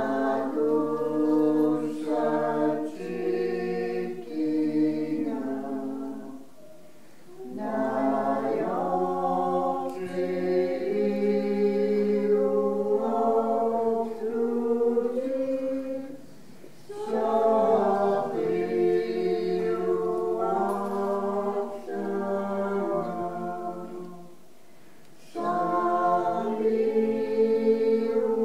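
A choir singing unaccompanied in held, slow-moving harmony, in phrases of several seconds with three short pauses between them.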